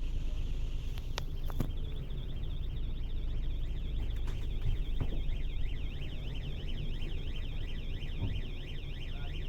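Scania K400 bus engine running steadily with a low rumble. From about half a second in, an electronic warning alarm sounds over it, a rapid tone that rises and falls over and over.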